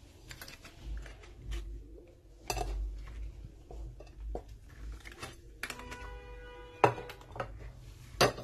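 A metal loaf tin and a glass cake plate clinking and knocking together as the tin is covered with the plate and turned over to demould a cake. A brief ringing tone comes about six seconds in, followed by two sharp knocks near the end.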